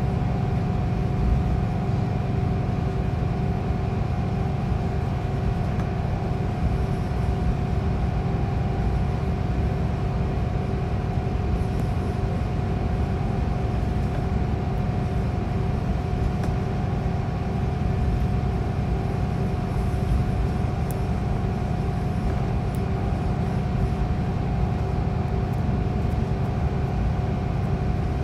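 Steady low drone heard from inside a Scania K410EB6 coach on the move: its 13-litre straight-six diesel and road noise, at an even pace, with a constant hum over the rumble.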